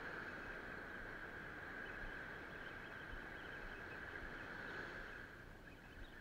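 Surf washing onto the beach, with a steady high whine over it that fades a little near the end.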